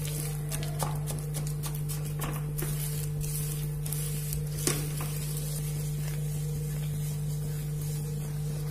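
Jaggery melting with a little oil in a pan over a low flame, sizzling softly while a wooden spatula stirs and scrapes the pan bottom, with scattered light knocks and one sharper knock about halfway through. A steady low hum runs underneath.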